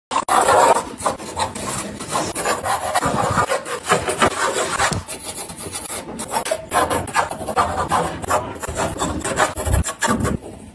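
Graphite pencil scratching across drawing paper in quick, repeated sketching strokes, several a second, with a few soft low thumps among them.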